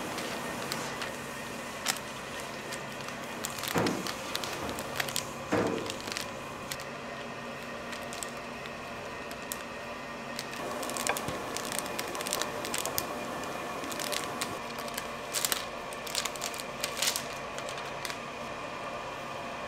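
Clear plastic film crinkling and rustling under gloved hands while dough is pressed and rolled flat beneath it with a rolling pin, with two louder knocks early on and many short crackles in the second half, over a steady background hum.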